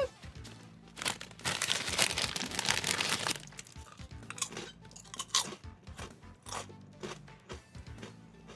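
Crisp popcorn chips being bitten and chewed: a dense run of crunching for about two seconds, starting a second in, then scattered single crunches, over quiet background music.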